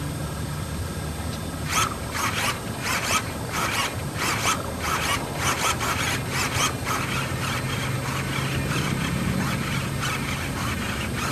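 Aileron servos of an E-flite Diamante 25e RC plane whirring in a run of short, quick bursts as the ailerons are flicked back and forth, fainter and closer together in the second half. A steady low hum runs underneath.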